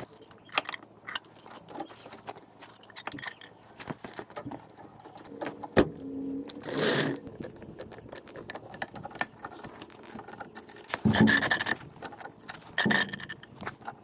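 Light metal clinks and rattles of a steel axle stand and its pin and chain as they are set under the car beside a floor jack, with a sharp click about six seconds in and a few louder bursts of noise later on.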